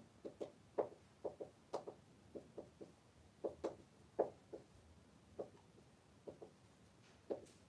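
Marker pen on a whiteboard as letters and bonds are written: a string of faint, irregular light taps and ticks.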